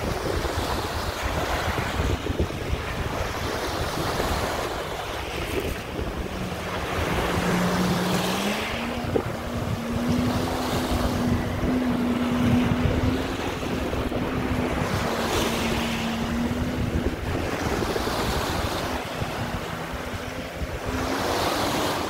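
Small waves washing onto a pebble shore, with wind buffeting the microphone. From about six seconds in, a jet ski's engine hum is heard as it pulls away; it steps up in pitch about two seconds later, holds steady, and fades toward the end.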